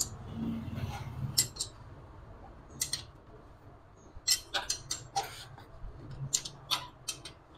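Steel ring spanner clicking against the oil drain bolt of a Honda CD70 engine as the bolt is turned and tightened by hand: a scatter of light metal ticks, most of them close together about four to five seconds in. A faint low hum sits under the first two seconds.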